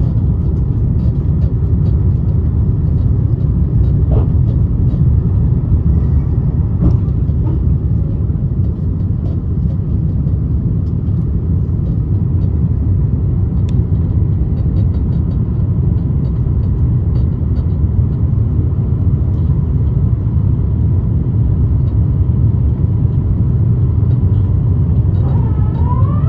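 Steady low rumble of a jet airliner's cabin noise, engines and airflow, with a few faint ticks.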